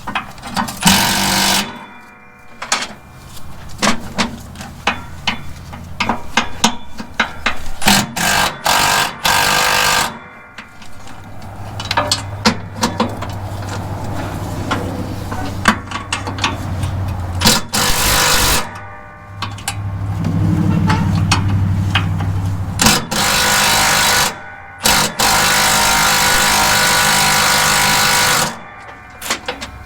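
Impact wrench hammering in repeated bursts of a second to a few seconds, breaking loose and spinning out tight 7/16 bolts. A steady low hum runs through the middle stretch.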